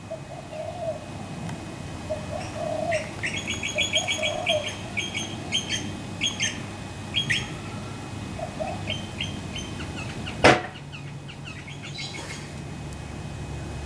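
Birds calling outdoors: runs of quick, high, repeated chirps, with a few lower warbling calls between. A single sharp knock about ten and a half seconds in is the loudest sound.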